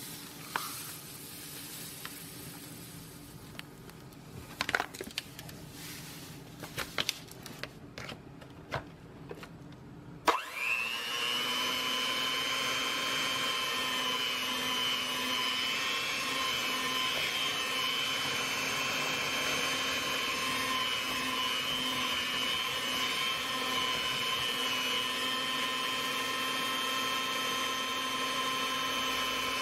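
A few light knocks, then about ten seconds in an electric hand mixer switches on and runs with a steady whine, its beaters churning mashed sweet potato and sugar.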